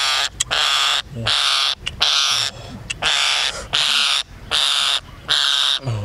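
A trapped green parakeet screeching over and over as it is grabbed by hand: harsh, loud squawks of about half a second each, roughly one and a half a second.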